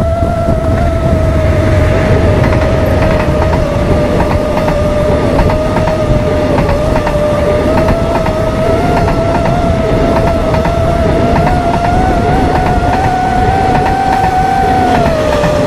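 A drone's motors whine steadily, their pitch drifting a little and dipping near the end, over the rumble and clickety-clack of a passing passenger train.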